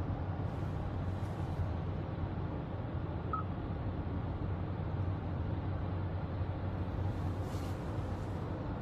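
Steady low road and engine rumble inside a moving car's cabin, picked up by a phone microphone.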